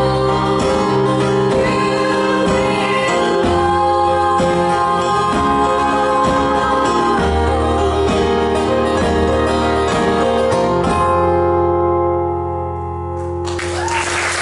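Live guitars and singing closing a song, strummed chords giving way to a held final chord. Audience applause starts near the end.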